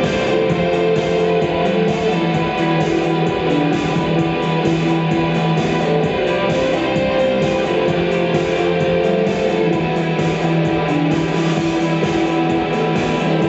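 Band music: an instrumental guitar passage over a steady beat, with no singing.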